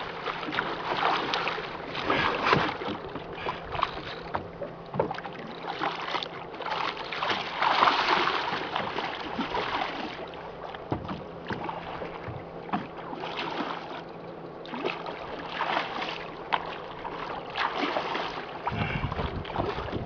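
Water sloshing and splashing against the side of a small boat in irregular surges, with wind buffeting the microphone.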